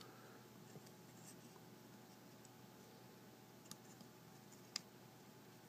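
Near silence: room tone with a few faint clicks of hard plastic action-figure parts being handled and pegged together, the two clearest about a second apart past the middle.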